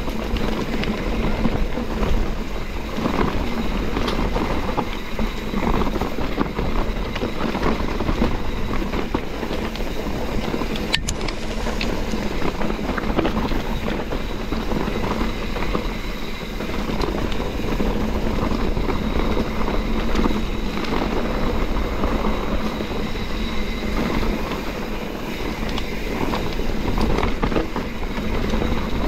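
YT Capra mountain bike riding over a rocky dirt single track: a constant rattle of chain and frame over stones, tyres rolling on gravel, and wind on the microphone. One sharp click about eleven seconds in.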